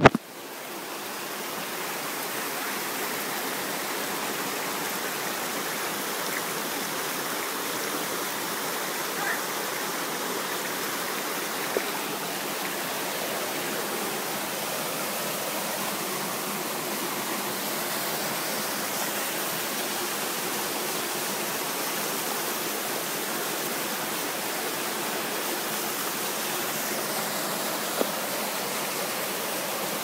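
Steady rushing of a waterfall and its stream, water pouring and splashing over rocks; it opens with a sharp click and swells over the first couple of seconds before holding even.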